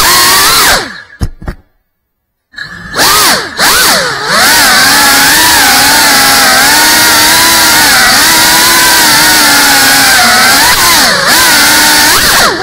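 GEPRC Cinelog 35 cinewhoop quadcopter's brushless motors and ducted propellers whining, the pitch rising and falling with the throttle. The motors cut out to near silence for about a second, about two seconds in. They then spin back up and hold a fairly steady whine, dipping briefly and climbing again near the end.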